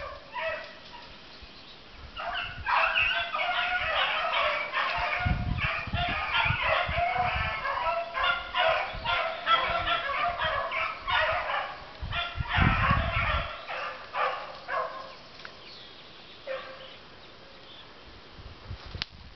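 A pack of rabbit-hunting dogs baying and yelping in chorus on a rabbit's trail. It starts a couple of seconds in and fades out in the last few seconds. Two short low rumbles come in the middle.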